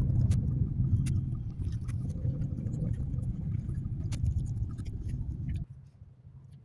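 Car running on the road, heard from inside the cabin as a steady low rumble of engine and tyres with a few light clicks; the rumble cuts off suddenly near the end.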